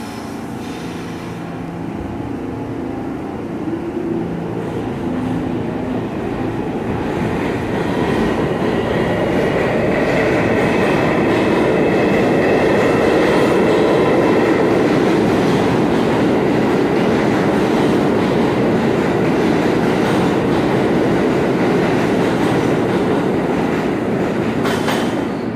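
R46 subway train pulling out of an underground station, its motor and wheel noise building over the first several seconds as it picks up speed, then holding loud as the cars run past on the rails.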